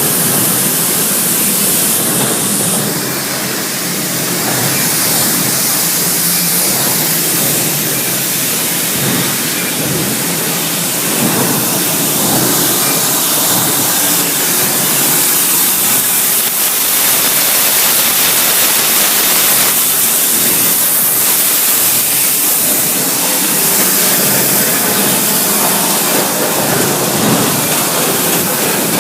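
Factory machinery noise: a loud, steady hiss.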